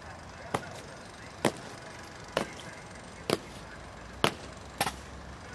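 Guard soldiers' boots striking the pavement in slow, measured ceremonial march steps: six sharp stamps a little under a second apart, the last two closer together. Underneath is a steady background of the crowd.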